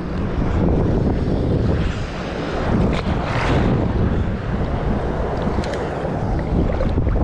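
Wind buffeting the microphone over choppy water, with waves sloshing close by and a brief louder rush about three seconds in.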